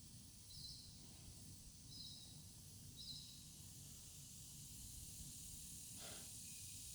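Near silence: a faint steady background hiss, with three short faint high chirps in the first three seconds and a soft brief sound about six seconds in.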